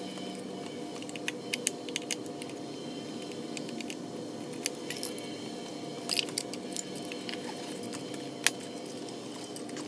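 Scattered small metallic clicks and clinks of a screwdriver and loose screws against the steel brush end cap of a golf cart motor as it is taken apart, with one sharper clink a little before the end. A steady low hum runs underneath.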